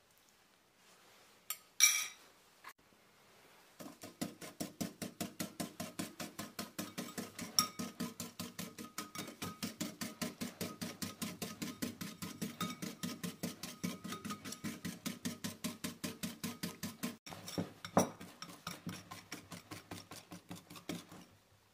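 Wire balloon whisk beating instant coffee, sugar and water in a ceramic bowl, whipping it into dalgona foam: fast, even strokes about five a second, the wires clattering against the bowl, with an occasional harder knock. The whisking starts about four seconds in, after a few clinks, and stops just before the end.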